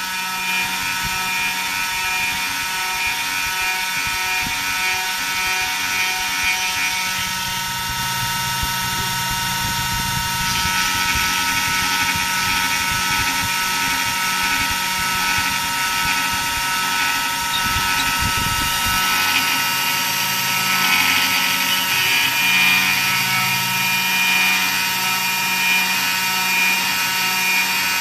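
300 W spindle of a home-built CNC router whining steadily as a 3 mm flat end mill cuts a 1 mm deep groove in a wooden board at a slow feed (240 mm/min), with the rasp of the cut underneath. A lower hum from the axis stepper motors shifts pitch and drops out now and then as the cutter changes direction.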